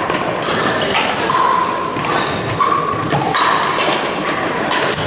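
Irregular sharp pops and thuds of pickleball paddles hitting plastic balls, with the ball bouncing on the court, ringing on in a large gym.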